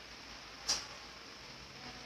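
A single sharp click, once, a little past the middle, over a faint steady hiss.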